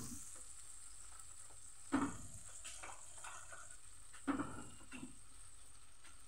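Boiled eggs and dried roselle leaves frying in oil in an aluminium kadai, with a steady high sizzle. The eggs are stirred, making two short, sharp sounds, one about two seconds in and one past four seconds.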